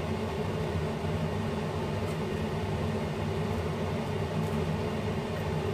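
A steady low mechanical hum that holds an even level throughout.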